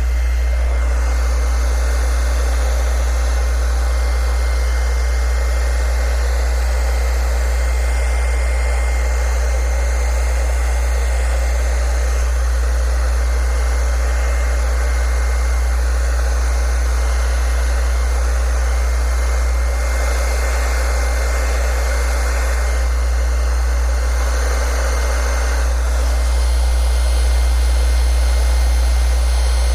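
Handheld hair dryer blowing steadily, with a strong low hum underneath, as it warms cast vinyl wrap so the film softens and can be pressed into the body's contours.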